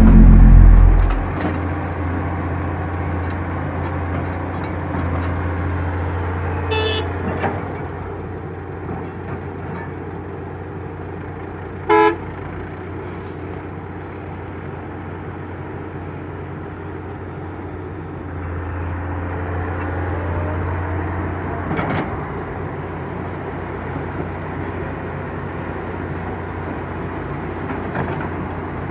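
Diesel engines of a crawler excavator and a dump truck running, with a heavy, loud thud of soil dropping into the steel truck bed at the start. A vehicle horn toots once, briefly, about twelve seconds in, and the engines rise again toward the end as the trucks move.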